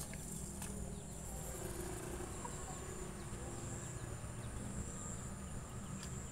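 Insects chirring in a steady high-pitched drone, over a low rumble of outdoor background noise.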